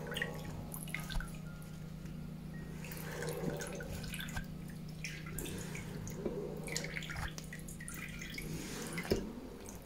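Wooden spoon scraping the inside of a cloth filter bag and stirring through settled grape must, with soft sloshing and dripping of the liquid. The thick lees are being scraped off the cloth so the juice can filter through again.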